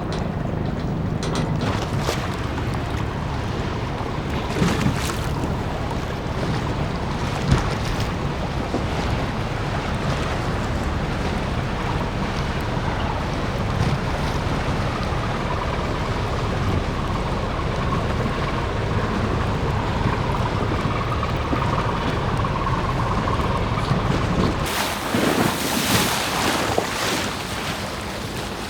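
Harbour ambience: a boat engine running low and steady under a continuous wash of wind on the microphone and water noise. The sound changes abruptly about 25 seconds in.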